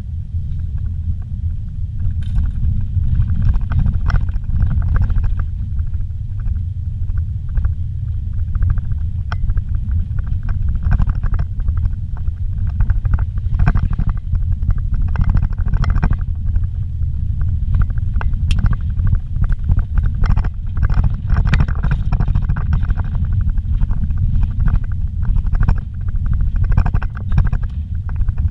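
Inside a vehicle's cabin while it drives a dirt and gravel road: a steady low rumble of engine and tyres, with frequent small knocks and rattles from the rough surface.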